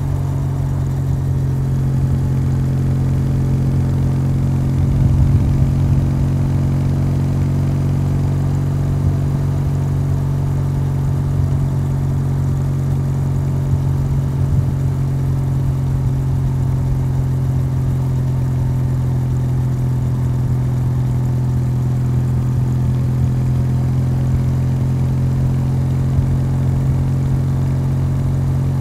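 Kawasaki W800's air-cooled parallel-twin engine running through its stock exhaust at a steady cruise on the open road, the pitch holding even, briefly a little louder about five seconds in.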